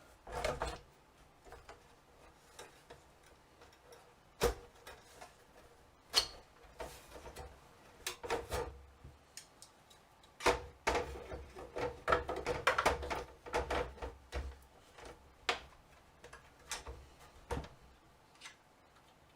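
Macintosh IIci logic board and case parts being handled and fitted back in: scattered sharp clicks and knocks of plastic and metal, with a busier run of rattling and scraping about two-thirds of the way through.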